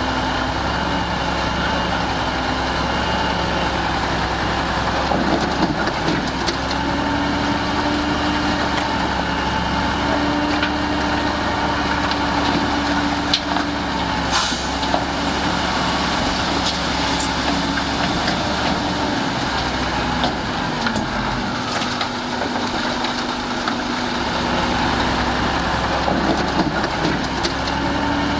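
Heavy diesel earthmoving machinery running steadily, its engine note shifting slightly up and down, with a few light knocks and clicks.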